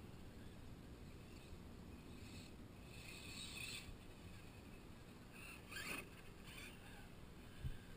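Faint rushing noise with short hissing bursts from a 1/8-scale brushless RC monster truck spinning its tyres through snow, the loudest burst about six seconds in as it slides close by.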